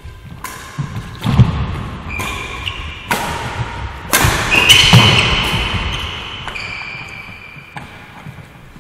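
Badminton doubles rally: sharp cracks of rackets striking the shuttlecock about once a second, with shoes squeaking on the court floor and footfalls, echoing in a sports hall.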